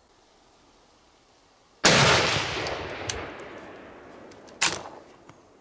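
A single shot from a Los-145 bolt-action rifle in .308 Winchester (7.62×51) about two seconds in: a sharp, very loud crack whose echo fades away over about two seconds. Near the end the bolt is worked, giving a short metallic clack.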